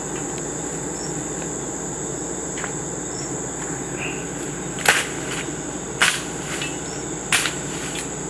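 Crickets trilling steadily at a high pitch. From about five seconds in come three sharp whacks, a long stick being swung down into the undergrowth.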